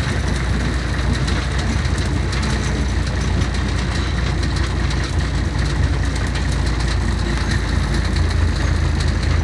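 Scania CN113CLB city bus heard from inside the passenger cabin: its 11-litre six-cylinder diesel engine gives a steady low drone under a constant haze of cabin noise. Many small rattling ticks come from the fittings as the bus drives.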